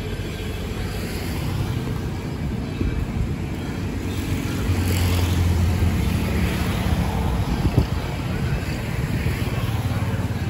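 Steady road traffic running past, with a louder low rumble of a passing vehicle about halfway through.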